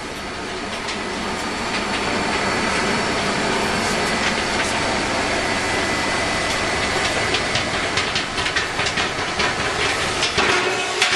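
Steady mechanical hiss and rumble, growing louder over the first two seconds, with a thin steady tone and a quickening run of sharp clicks and clatter in the last few seconds.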